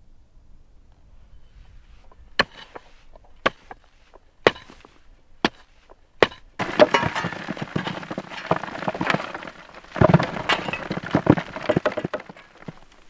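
Loose earth and clods tumbling into a grave in a dense crackling rattle, which starts a little past halfway. Before it come five sharp knocks about a second apart.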